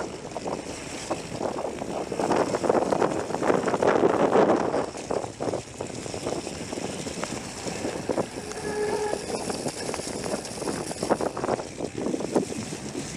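Mountain bike ridden fast over rough trail: a continuous irregular rattle of the bike and tyres on rocky ground, loudest a few seconds in, with wind on the microphone.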